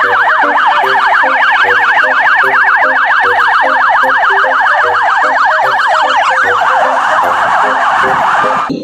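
Electronic police-car siren in a fast yelp, its pitch sweeping up and down several times a second. About two-thirds of the way through it turns into a harsher, noisier tone, then cuts off suddenly just before the end.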